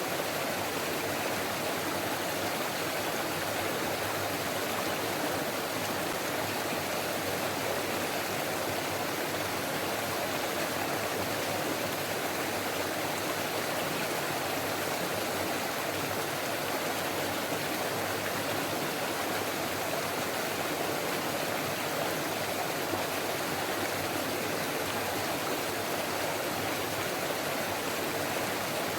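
Forest stream flowing and babbling, a steady rush of water with no breaks.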